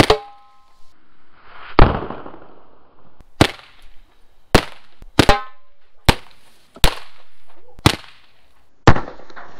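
Handheld roman-candle firework shots: about ten sharp bangs, roughly one a second, some trailed by a brief hiss or crackle, as its charges strike around a plastic beer keg.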